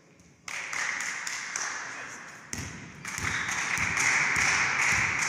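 Clapping and cheering echoing in a sports hall. It starts suddenly about half a second in and grows louder about three seconds in, with a few low thuds under it.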